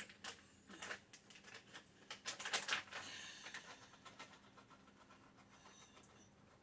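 Faint crinkling and rustling of a plastic bag of chopped pecans being handled, with a few light clicks, loudest a couple of seconds in and then fading.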